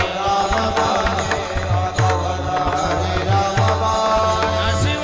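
Kirtan accompaniment between sung lines: a held melody over hand-drum playing, its deep bass strokes bending down in pitch several times a second.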